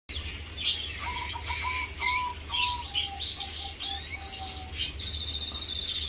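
Several caged birds chirping and twittering: quick high chirps, a run of about ten lower whistled notes that step down slightly in pitch, and a fast buzzy trill near the end. A low steady hum runs underneath.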